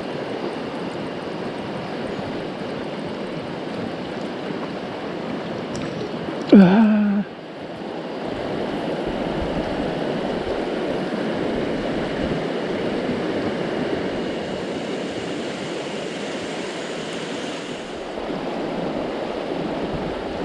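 Rushing water of a mountain stream running over rocks: a steady wash. About six and a half seconds in, a short loud pitched sound drops in pitch and holds briefly.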